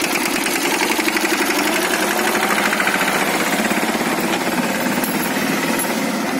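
Swaraj 717 mini tractor's single-cylinder diesel engine running with a rapid, even knock, pulling a loaded trolley.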